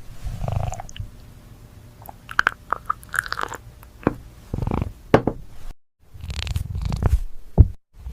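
A cat chewing and crunching food, with irregular crisp crunches between wetter chewing. The sound cuts off abruptly twice in the second half.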